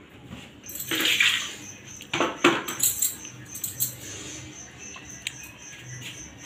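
Metal kitchen utensils clattering and clinking as they are handled, loudest in two bursts about one and two seconds in, then lighter clinks. A high, evenly pulsing chirp runs underneath from about half a second in.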